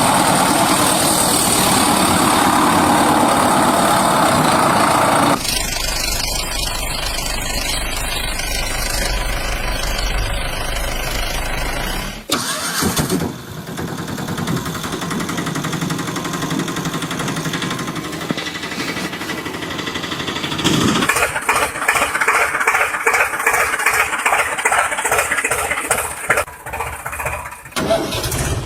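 Engines running in a string of different clips, the sound changing abruptly about five, twelve and twenty-one seconds in. The last stretch has a fast, even pulsing.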